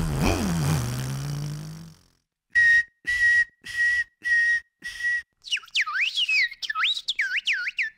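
Beatboxers' mouth-made sound effects. A low sound glides downward, then five short, even beeps at one steady pitch, then a warbling whistle that swoops up and down.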